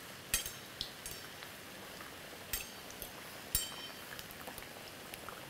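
Rava medu vadas deep-frying in hot oil: a steady bubbling sizzle, with a few sharp clinks of a metal spoon against the steel pan as they are turned.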